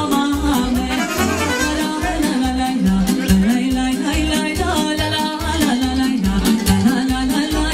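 A band playing Romanian folk dance music (muzică populară) with a steady beat, a moving bass line and a melody, and a voice singing over it.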